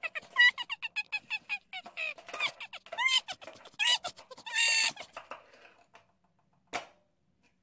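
A fast run of short, high, squeaky chirping calls, several a second, with a longer held call about five seconds in, then quiet broken by a single click near the end.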